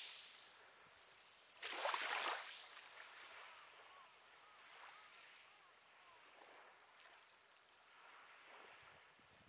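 Faint seaside ambience of small waves washing in, with one louder wash about two seconds in.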